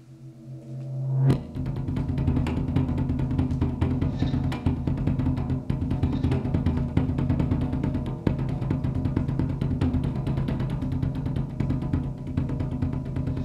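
Film soundtrack music: a low held tone swells up over the first second or so, then dense drumming over a steady low bass starts abruptly and keeps going.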